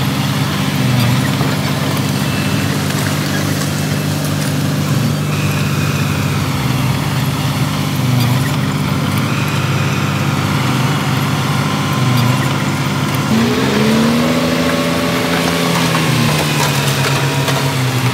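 Heavy diesel machinery engine running steadily, revving up and back down about three-quarters of the way through.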